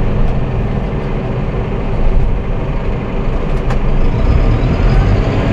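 Massey Ferguson 5S.145 tractor's four-cylinder diesel engine running steadily, heard from inside the cab, while the front loader's hydraulics lower the raised arms at full hydraulic flow.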